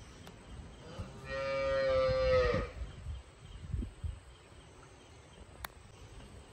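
A cow moos once, a single long call of about a second and a half that drops in pitch as it ends. A sharp click follows later.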